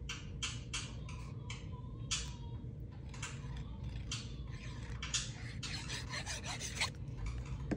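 Tip of a liquid-glue squeeze bottle scratching across a small piece of cardstock as glue is spread, with paper being handled. It comes as a string of short, irregular scratchy strokes.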